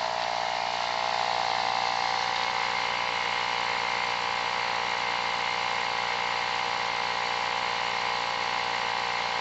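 Air compressor running steadily, inflating a tubeless tyre through its valve so the bead slowly seats against the steel rim.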